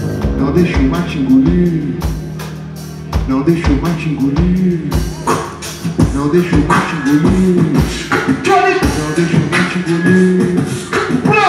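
Beatboxer performing into a handheld microphone through a stage PA: a steady beat of vocal kick-drum thumps under a hummed bass line that bends up and down, with a short lull about two to three seconds in.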